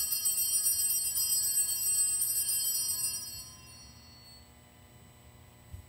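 Altar bells ringing at the elevation of the chalice in the consecration, a bright shimmering jingle that stops about three and a half seconds in and fades out.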